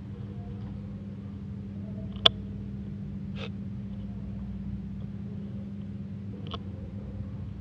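Steady low hum, with a few sharp clicks, the loudest about two seconds in.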